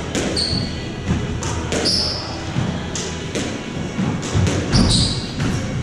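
A squash rally: the ball cracking off rackets and the walls about once a second, with short squeaks of court shoes on the wooden floor.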